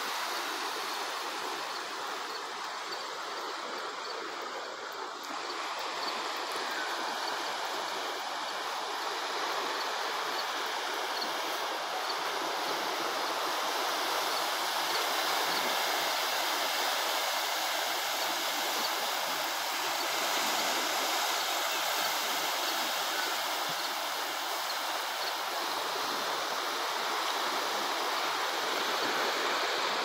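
Small waves washing steadily against a rocky shoreline, an even rushing hiss that swells slightly in the second half.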